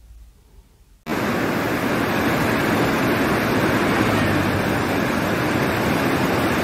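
Faint and quiet for about a second, then the rush of river rapids starts abruptly and runs on as a steady, loud wash of white water.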